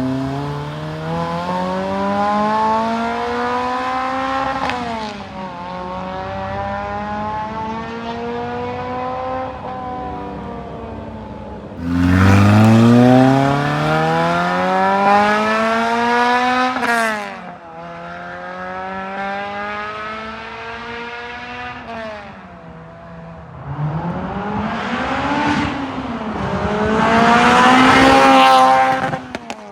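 Lotus Elise's 2ZZ-GE inline-four exhaust, through an aftermarket Sonic Fury muffler, accelerating through the gears. The pitch climbs steadily in each pull and drops sharply at each shift. The hardest and loudest pulls come about twelve seconds in and near the end.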